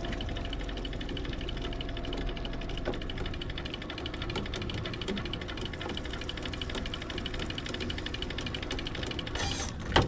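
Fishing reel's ratchet clicking rapidly and steadily as the reel turns, with a single knock near the end.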